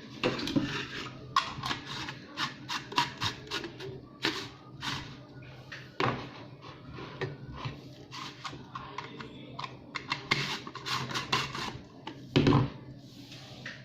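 Handling noise: irregular clicks and knocks in quick runs, with a heavier thump near the end, over a steady low hum.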